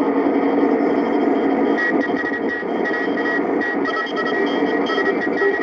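Shortwave radio receiver tuned to 14030 kHz, in the Morse section of the 20-metre amateur band: hissing band noise with Morse code tones keyed in dots and dashes, one starting about two seconds in and a second, higher one joining near four seconds.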